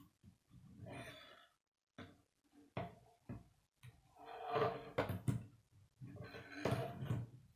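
Plastic K'nex construction pieces knocking and clattering against each other and a wooden tabletop as a large built model is handled and turned, with several sharp knocks, the loudest about five seconds in.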